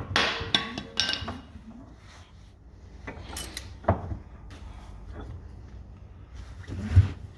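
Metal clinks and knocks of spray-pump parts and tools being handled at a bench vise: a quick cluster in the first second or so, a few scattered knocks, then a louder thump near the end.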